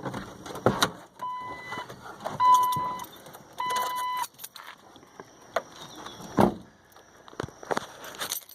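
Car's warning chime sounding three times, each tone about half a second long, as the driver gets out of the car, amid clicks and rustling, with a single loud thump about six and a half seconds in.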